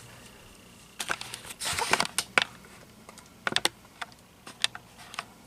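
Light handling clicks and taps, sharp and in small irregular clusters, like fingers and objects knocking on hard parts.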